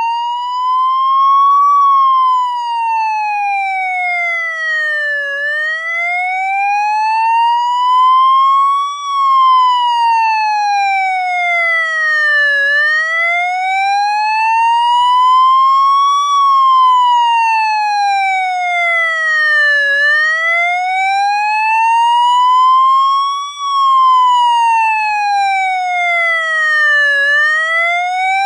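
Electronic police siren sounding a slow wail, its pitch climbing and falling evenly in a cycle of about seven seconds, about four times over.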